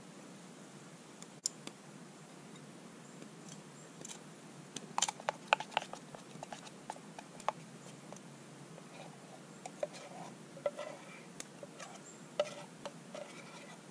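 Metal camp cookware being handled on a small metal can stove: a burst of sharp clinks and clacks about five seconds in, then lighter scattered clinks with brief ringing near the end.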